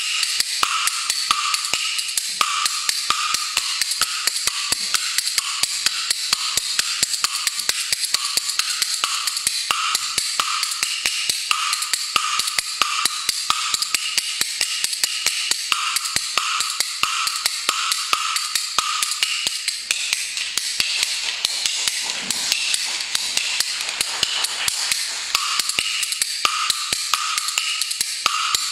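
Kuaibanshu bamboo clappers played solo, the large two-piece bamboo clapper in one hand and the small multi-piece jiezi clappers in the other, clacking out a fast, continuous stream of wooden clicks in a patterned rhythm. It is the instrumental clapper opening played before the recitation begins.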